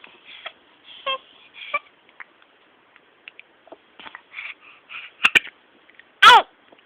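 A baby hiccupping: a few short, soft hics with quiet breathing between, then near the end one louder, brief squeaky hic that drops in pitch.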